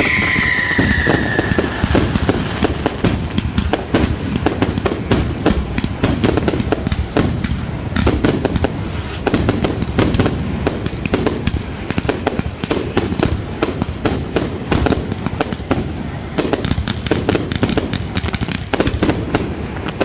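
Fireworks barrage: a rapid, unbroken string of shell bursts and crackling reports. A whistle falling in pitch fades out in the first couple of seconds.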